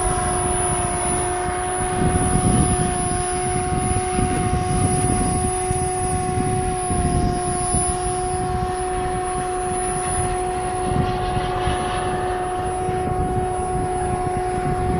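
Twin electric ducted fans of an RC A-10 model in flight, running at a steady throttle: an unchanging tone over a rough rushing noise.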